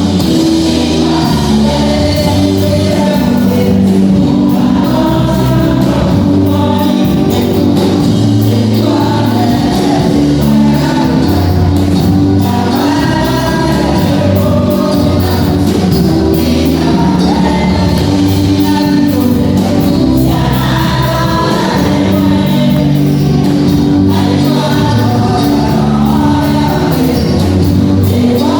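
Gospel choir music: a group of voices singing over steady accompaniment.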